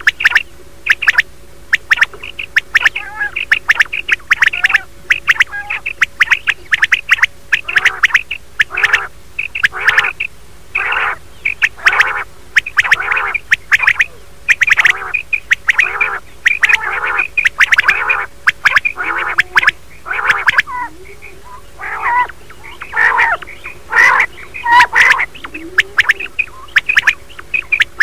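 Recorded quail calls of the kind played as a hunting lure: rapid runs of sharp call notes repeating over and over with short pauses, stopping shortly before the end. A faint steady hum runs under them.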